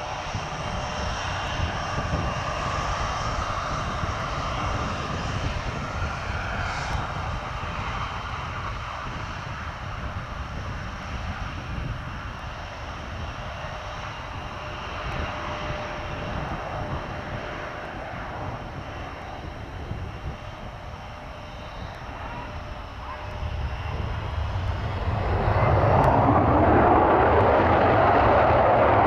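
Twin RB199 jet engines of a Panavia Tornado whining steadily at low power, then, near the end, spooling up into a much louder roar at full power with reheat lit for the take-off roll.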